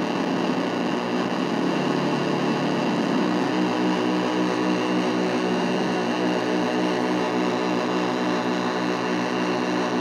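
Nova Drone analog drone synthesizer playing a dense, buzzing drone of many stacked tones. About three and a half seconds in, the low tones shift and begin to pulse in a fast, even rhythm.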